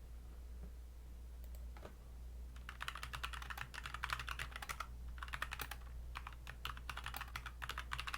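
Typing on a computer keyboard: quick runs of keystrokes starting about two and a half seconds in, broken by short pauses, over a steady low hum.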